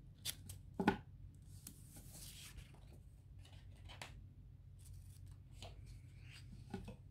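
Scissors snipping through washi tape, two sharp snips close together near the start, followed by a few softer clicks and rustling as the tape and paper are handled.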